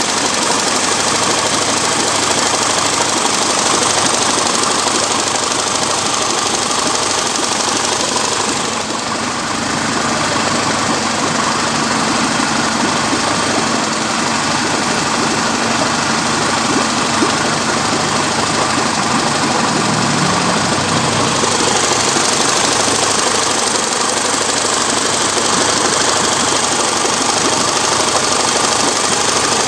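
Evinrude E-Tec 60 hp two-stroke outboard motor running steadily, with a short dip in level about nine seconds in and a brief change in pitch around twenty seconds.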